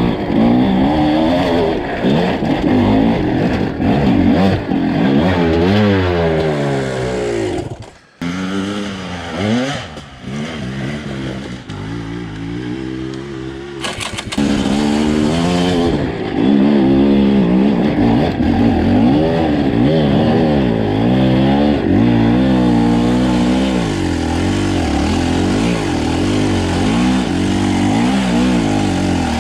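Two-stroke enduro dirt bike engine being ridden hard, its revs rising and falling over and over as the throttle is worked. The sound breaks off briefly about eight seconds in.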